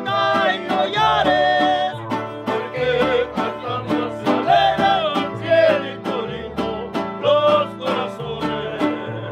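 Mariachi string section playing: a vihuela strummed in a fast rhythm over deep guitarrón bass notes and guitar, with a man singing.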